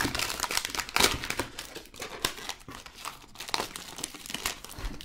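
Wrapper of a 2020-21 Upper Deck Series 1 hockey card pack crinkling and tearing as it is opened by hand. The crackling is densest about a second in and thins out toward the end.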